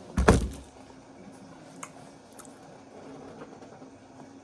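A single muffled thump about a fifth of a second in, then faint small clicks over quiet room tone.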